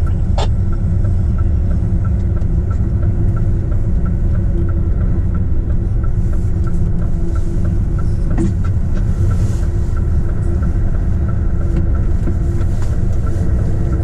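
A 44-tonne truck driving on an icy road: steady low engine and road rumble, with a light tick repeating about two to three times a second and an odd click.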